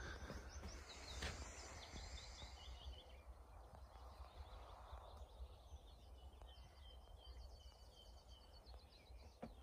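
Faint woodland birdsong: a bird gives a run of short repeated chirps, and later a longer rapid trill, over a low steady rumble.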